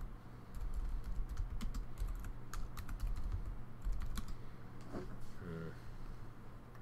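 Typing on a computer keyboard: irregular key clicks for about four seconds, thinning out after that.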